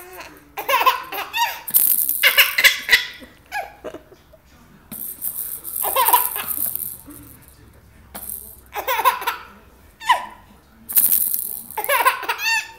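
A 3.5-month-old baby laughing in repeated giggling bursts as a rattle is shaken in four short spells, the laughter coming with each shake.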